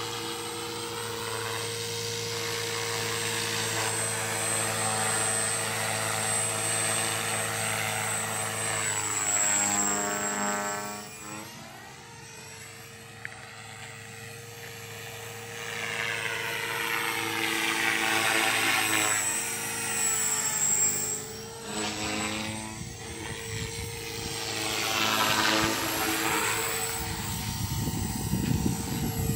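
Walkera V450D03 electric flybarless RC helicopter in flight: a steady high motor and rotor whine that sweeps up and down in pitch as it passes close, fades for a few seconds around the middle, and swells again. A low rumble comes in near the end.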